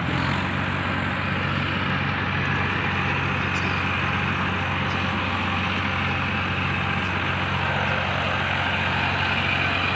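Diesel tractor engines running steadily at a constant speed, a low even engine drone with no revving.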